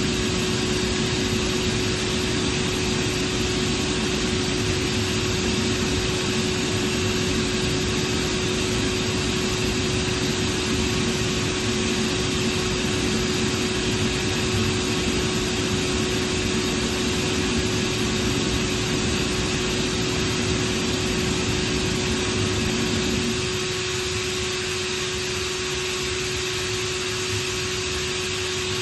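Atlas Copco GA11VSDFF oil-injected rotary screw air compressor running, a steady loud hum with one prominent tone over a broad rushing noise. About three quarters of the way in it turns a little quieter and part of its lower rumble falls away.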